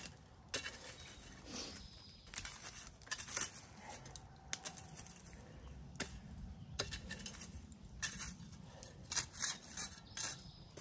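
Hot coals and rocks being shifted over a cooking pit: an irregular series of short clinks, knocks and scrapes.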